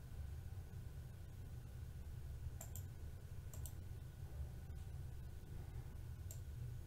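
Computer mouse clicks: a few sharp clicks, some in quick pairs like double-clicks, spread over a few seconds above a faint low hum.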